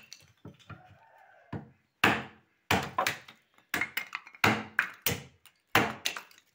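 Hatchet splitting firewood into small kindling on a log chopping block: a run of sharp wooden chops, a few light ones at first, then louder strikes about two a second from about two seconds in.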